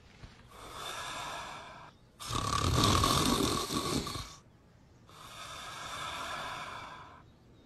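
A man snoring: three long breaths of about two seconds each, the middle one the loudest.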